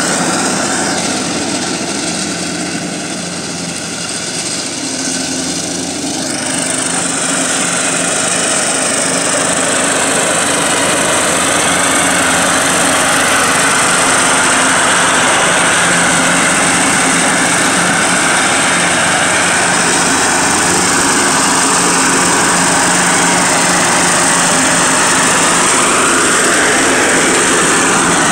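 Cub Cadet riding lawn tractor running under load with its mower deck cutting grass; quieter a few seconds in, then louder and steady from about ten seconds in. The owner says it makes a metal-against-metal scraping noise while it scalps the lawn lower on one side.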